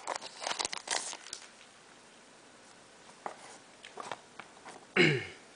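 Crinkling of a foil Pokémon booster pack being handled and opened, then a few faint ticks of card handling, with a short vocal sound, falling in pitch, near the end.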